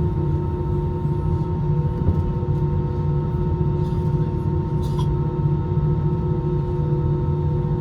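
Airbus A320 cabin noise in flight: a steady low rumble of engines and airflow with several constant humming tones over it.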